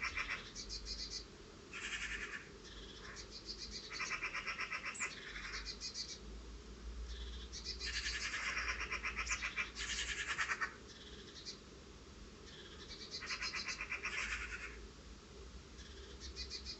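Wild birds giving alarm calls: repeated bouts of rapid, rattling chatter, each lasting about a second. This is mobbing and scolding at cats that have caught a bird.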